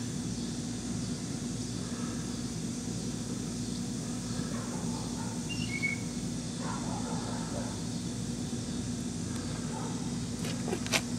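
Steady low mechanical hum with background hiss, two brief high chirps about six seconds in, and a sharp knock near the end.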